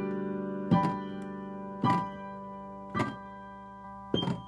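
Piano playing a slow run of chords, four struck about a second apart, each ringing and fading before the next.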